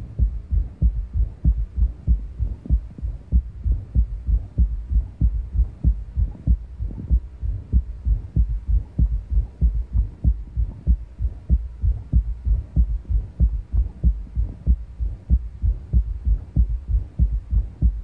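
Heart sounds heard through a stethoscope at the cardiac apex: a steady run of low heartbeats with an extra soft filling sound after the second sound, a third heart sound (S3 gallop), which usually means a dilated, poorly contracting heart. A squeaky systolic murmur comes and goes with the patient's breathing.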